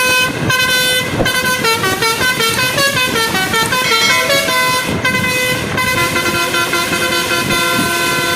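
Basuri telolet multi-tone bus horn playing a melody: several horn notes sounding in quick succession, stepping up and down in pitch.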